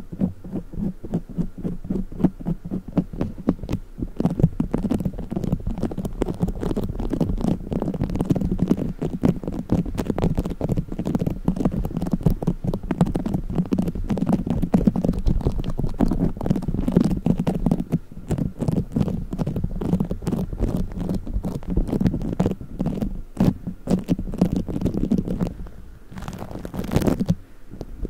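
Play foam being squished and kneaded by hand: a dense, continuous run of fast tiny crackles and pops, easing briefly near the end.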